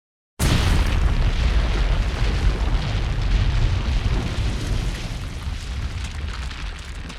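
Explosion sound effect: a boom that starts suddenly out of silence about half a second in, followed by a deep rumble that slowly fades.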